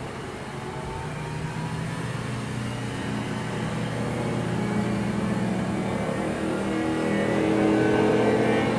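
A restored 1984 Thunderbolt 1000 tornado siren running a full test with a towel stuffed in its horn: a steady, pitched wail with several tones together. It grows louder over several seconds to a peak near the end.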